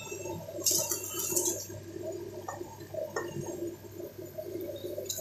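Thick potato curry bubbling in an aluminium pot, a continuous low gurgling, with a brief hiss about a second in.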